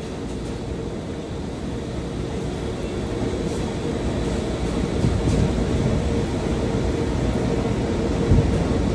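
Steady low rumble of warehouse machinery, automated packing machines and conveyors running, with a constant mid-pitched drone over it, growing gradually louder, with a couple of dull thumps near the end.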